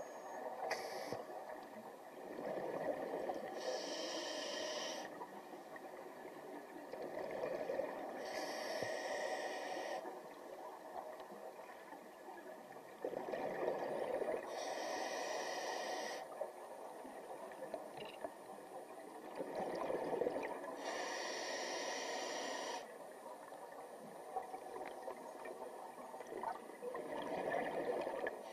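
Scuba diver breathing through a regulator underwater: a hiss and a churn of exhaled bubbles repeating slowly, about one breath every six seconds.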